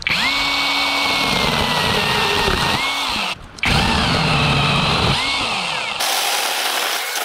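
Small battery-powered mini chainsaw running in bursts, a high electric motor whine whose pitch sags as it cuts into a pine limb and rises again when it frees. It stops for a moment about three and a half seconds in, then starts again.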